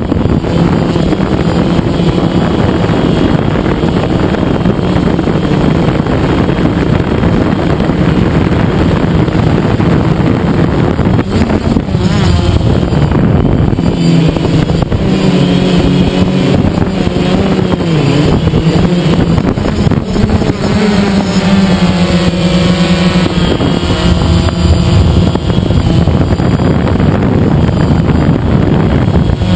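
DJI Phantom quadcopter's motors and propellers whirring loud and close, heard from the camera carried on the drone. The motor pitch wavers up and down through the second half as the drone manoeuvres.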